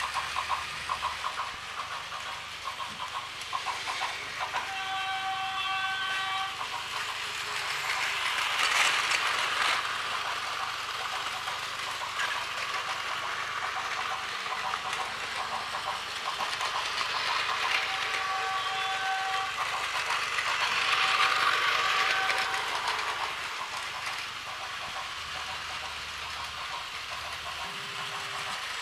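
Battery-powered Plarail toy trains whirring and clattering along plastic track, growing louder twice as a train passes close. Twice a short run of electronic beeping tones sounds over the motor noise.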